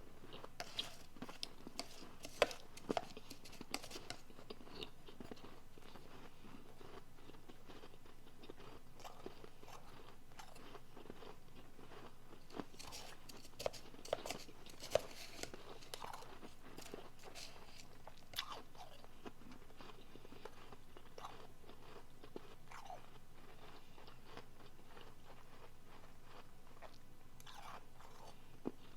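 Soft refrozen powdery blender ice being bitten and chewed: crisp crunches in clusters, with quieter pauses between the bites.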